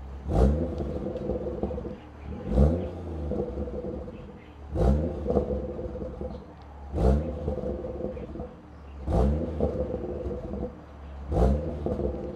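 BMW M140i's 3.0-litre turbocharged B58 straight-six, fitted with a catless downpipe and the factory cat-back exhaust in Comfort mode, blipped from idle about every two seconds, six times. Each blip opens with a sharp crack and a quick rise in pitch, then drops back to a steady idle burble.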